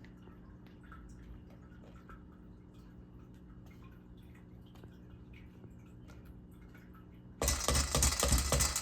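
Faint scattered clicks and taps over a low steady hum. About seven seconds in, a loud, dense burst of crackling and clattering begins as more cornstarch is got out of its packaging.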